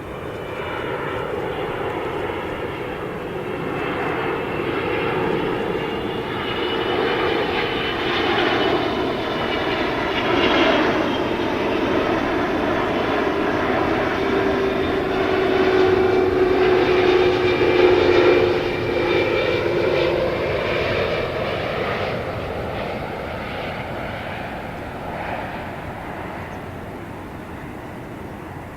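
Jet airliner passing close by, its engine noise swelling to a peak about two-thirds of the way through and then fading away, with a high whine and a lower tone that slides down in pitch as it goes by.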